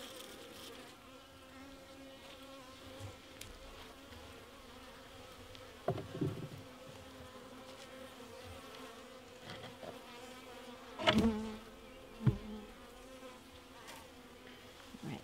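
Honey bees buzzing in a steady low hum. A few short knocks come from handling the wooden bee box, the loudest about two-thirds of the way through.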